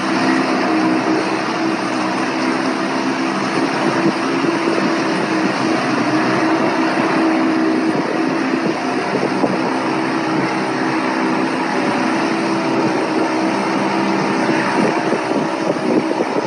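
Outboard motor on a small metal boat running steadily, a low engine drone with a constant hiss of noise over it.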